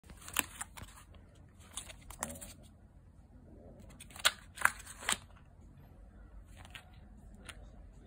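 Plastic food packaging, a sealed meat tray and a soft soup pouch, crinkling and crackling as it is picked up and turned over in the hands, in a string of short sharp crackles, loudest about four to five seconds in.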